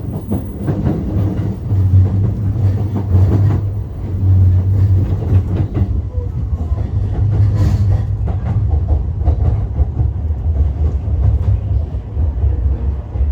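Train rolling along the track: a steady low rumble with wheels clacking over rail joints.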